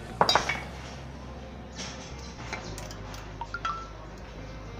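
Metal clicks and clinks as the rear end cover of a 2 hp electric motor is worked loose and lifted off the stator by hand. A few sharp clicks come right at the start, then quieter handling noise with a brief metallic ping past the middle.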